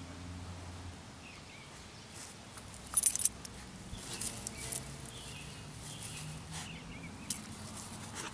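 Dog rooting with its nose in grass: crackling rustles and clicks, the loudest burst about three seconds in and smaller ones after, over a faint low hum that comes and goes.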